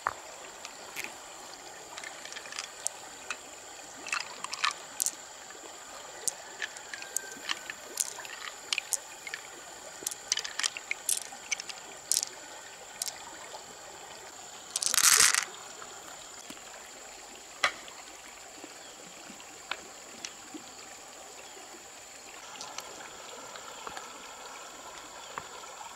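Stream water running steadily, with scattered small clicks and taps as pearls and the mussel shell are handled. One louder, brief burst of noise about fifteen seconds in.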